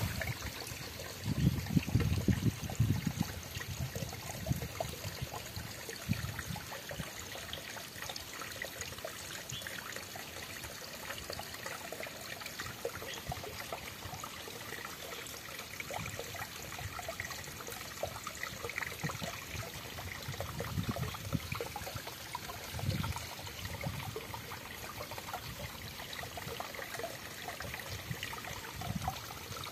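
Water trickling and running over rocks, a steady hiss, broken by a few low muffled bumps, the loudest about two seconds in.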